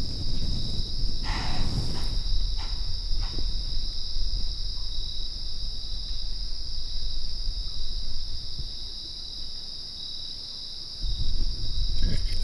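Insects trilling in a steady, unbroken high-pitched chorus over a low rumble, with a few brief rustles about one to three seconds in.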